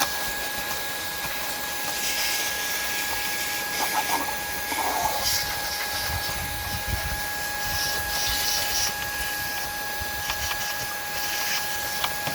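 Shark IZ251 cordless vacuum running with a steady high whine and hiss, a small detail attachment rubbing and tapping against the car's dashboard trim, with a few light knocks.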